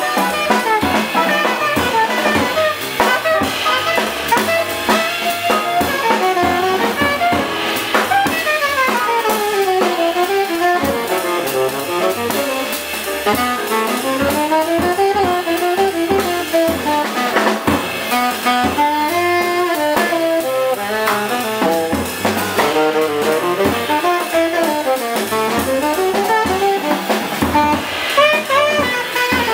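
A jazz quintet playing live: a saxophone carries a fast, winding solo line with long falling and rising runs over drum kit, piano, guitar and bass.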